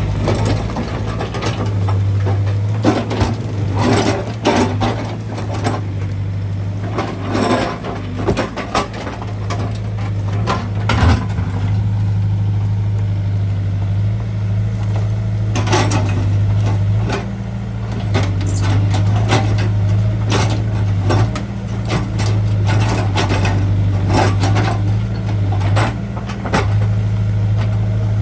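Backhoe loader's diesel engine running with a steady low hum that swells and eases by turns, with many sharp clanks and knocks from the digging gear throughout.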